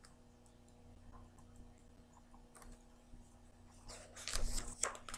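Pages of a paperback picture book being handled and turned: faint clicks and small paper noises, then a louder rustle of the page turning about four seconds in.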